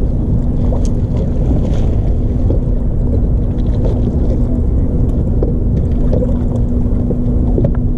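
Wind buffeting the microphone of a camera mounted on a bass boat: a loud, steady low rumble with a faint steady hum under it and a few light ticks.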